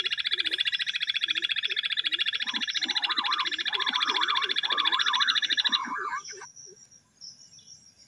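Jungle bush quail calling: a fast, evenly pulsing trill that runs for about six seconds and then stops, with softer, lower curving calls beneath it.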